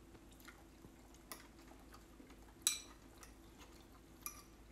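A metal fork clinking against a porcelain bowl while eating: a few light, scattered clicks, the sharpest with a short ring about two and a half seconds in, over a faint steady hum.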